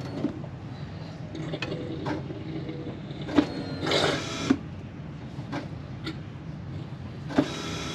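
Newly replaced electric in-tank fuel pump of a 1999 Jeep Wrangler TJ whirring as the ignition is keyed on to prime the fuel system, with a few sharp clicks.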